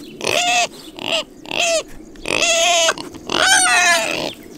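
Piglets squealing at the fence, about five pitched calls in a row, the longest near the end, calling to be fed.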